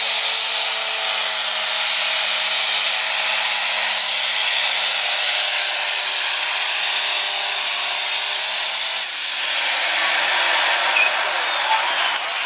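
Turbocharged diesel engine of a John Deere limited pro stock pulling tractor running flat out under the load of the pull, a loud steady scream with a high turbo whine and hiss. About nine seconds in the engine eases off and its pitch drops as the run ends.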